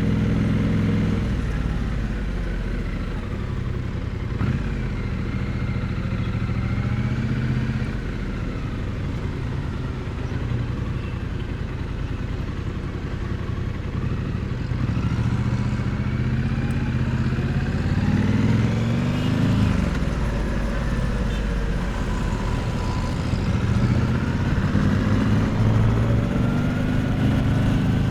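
Triumph Bonneville T100 parallel-twin motorcycle exhaust, heard up close while riding. The engine note rises and falls several times with the throttle, climbing sharply about two-thirds of the way through.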